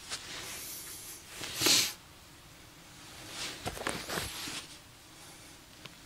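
Close, quiet breathing noises from the person holding the camera, with a sharp sniff about a second and a half in. Brief rustling and small clicks follow around the four-second mark.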